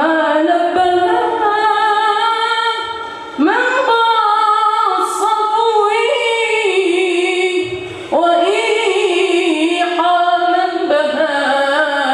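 A boy singing an unaccompanied nasheed, long held notes with ornamented runs that bend up and down in pitch, broken by short breaths about three and eight seconds in.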